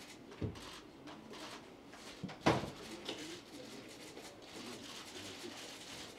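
Quiet room tone of a press room, with a few knocks and clicks from handling at a lectern with microphones. The loudest is a sharp knock about two and a half seconds in.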